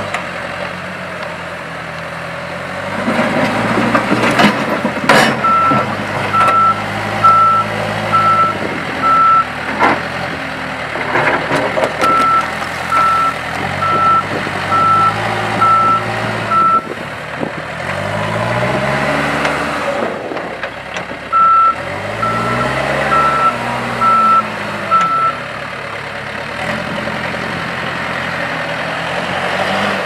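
Case 580N backhoe's 4.5-litre four-cylinder turbo diesel running as the machine drives and manoeuvres, with its reversing alarm beeping steadily in three separate runs while it backs up. The engine revs up and drops back twice in the second half, and a few sharp knocks come about five seconds in.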